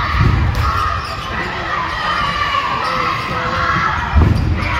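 Crowd of spectators in a school gym shouting and cheering at a basketball game, many voices at once, with a basketball bouncing on the hardwood court near the start and again about four seconds in.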